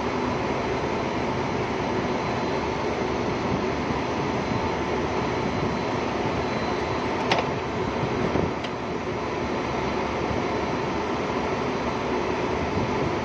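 Steady noise from the goods trains standing on the tracks nearby, with a sharp click about seven seconds in and a fainter one a second or so later.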